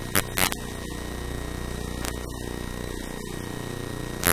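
Steady electrical hum and buzz, with two short voice sounds just after the start.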